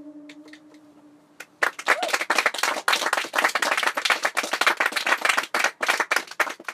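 The last held note of the song fades out, with a few early claps, then the audience breaks into steady applause about a second and a half in.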